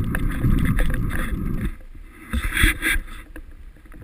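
Wind buffeting and road rumble on a bicycle-mounted camera's microphone while riding. The low rumble eases after about a second and a half, and a short clatter follows near the middle.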